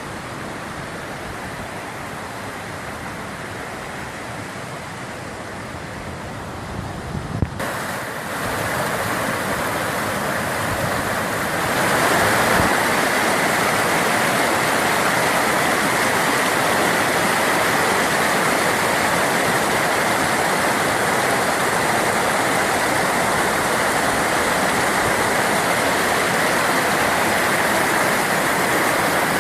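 Waterfall rushing in a steady roar of falling water, growing louder in two steps, about a quarter of the way in and again a few seconds later, with a brief knock just before the first rise.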